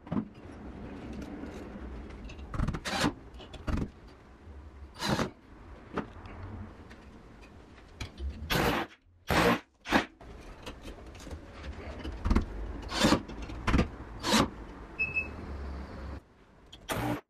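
About a dozen irregular sharp clicks and knocks, some in quick pairs and threes, from small metal framing hangers and a cordless drill being handled and set against a wall, over a low steady rumble.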